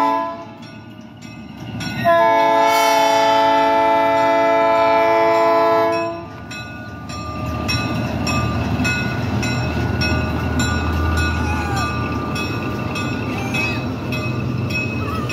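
Diesel switcher locomotive sounding its air horn: the tail of one blast right at the start, then one long blast of about four seconds. After the horn, the locomotive's diesel engine rumbles as it passes pulling a passenger coach, with a crossing bell ringing steadily.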